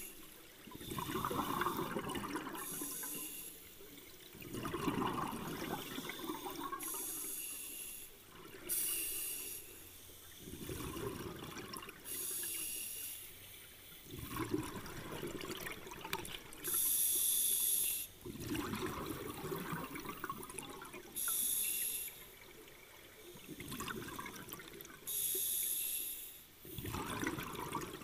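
Scuba diver breathing through a regulator underwater: a short hiss on each inhale, then a longer bubbling rush as the breath is exhaled, repeating in a slow, even rhythm about every four seconds.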